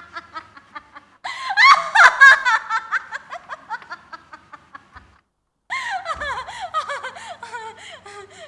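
A woman laughing loudly, an acted stage laugh in quick repeated pulses, loudest about two seconds in; it breaks off for about a second midway and then starts up again.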